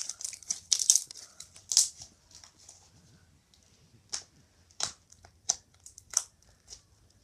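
Slime being squished by hand: a run of sticky crackles and pops, thickest in the first two seconds, then single pops every half second or so.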